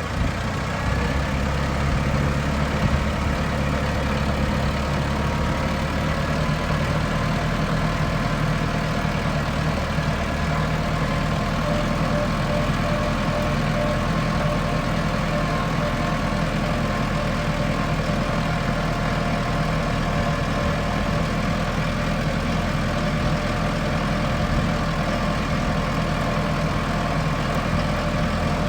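Tractor engine running steadily as the tractor is driven over to the next section of the driveway, with a faint higher whine over the low engine note.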